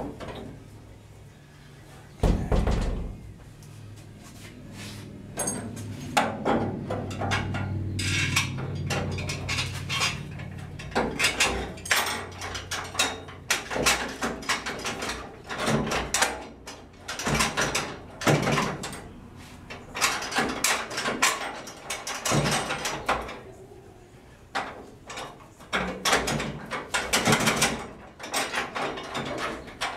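Irregular metal clunks, taps and scrapes as hands work at the bottom edge of a pickup truck's steel front bed panel and its bolt hardware, with one heavier thump about two seconds in.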